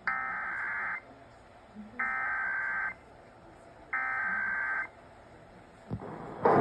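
Emergency Alert System SAME header tones: three harsh, buzzy bursts of data tones, each about a second long with a second's pause between them, signalling the start of an emergency alert broadcast. A rising siren attention tone starts right at the end.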